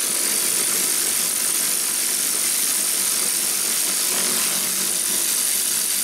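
Battery-powered ratchet running steadily with a high whine, backing out an 8 mm bolt that holds a starter solenoid.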